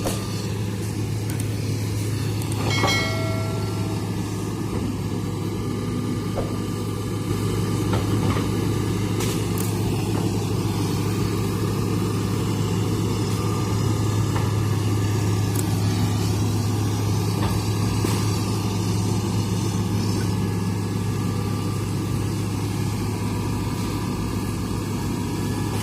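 Hitachi hydraulic excavator's diesel engine running with a steady low hum, with a few brief sharp cracks over it.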